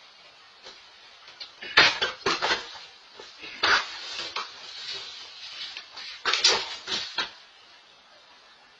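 Clattering knocks and bangs from objects being handled and set down, in three bursts about two, four and six and a half seconds in, heard through a doorbell camera's microphone.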